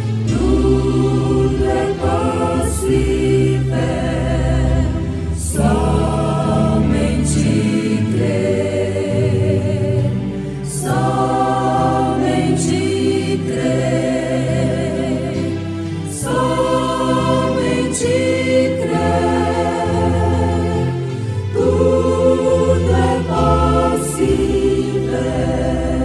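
Choir singing a hymn in long, held phrases over a steady low bass line.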